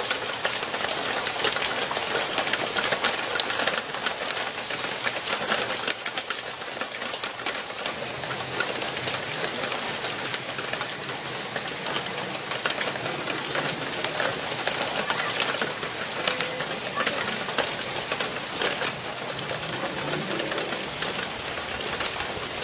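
Heavy rain falling steadily on paving and garden plants.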